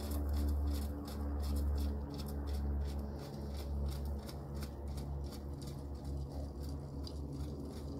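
Wind buffeting the phone's microphone: a steady low rumble with a quick, irregular crackle on top.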